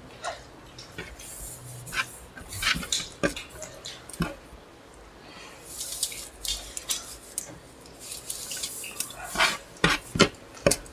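Maggi noodles being eaten: cutlery clinking and scraping on plates in irregular clicks, with wet slurping and chewing hisses between.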